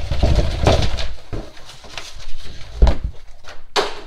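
Paper rustling as a folded air-filter instruction sheet is handled, over low thumps of handling noise on a hand-held camera's microphone. A sharp, short swish comes near the end.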